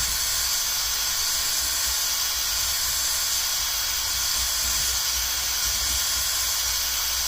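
Battery drill spinning a spring-loaded cylinder hone inside an oiled motorcycle cylinder barrel: a steady whirring hiss.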